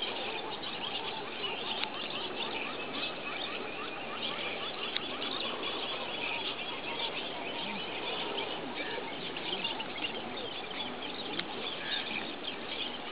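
A dense chorus of many small birds chirping and calling at once. A few seconds in, a fast run of short repeated notes lasts several seconds.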